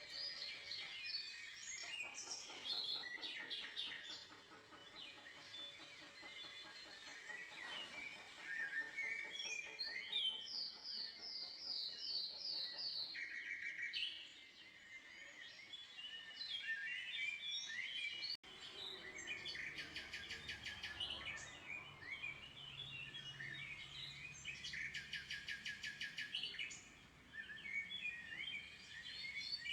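Several songbirds chirping and singing at once, overlapping quick calls and trills, including a run of about eight rapid repeated notes partway through.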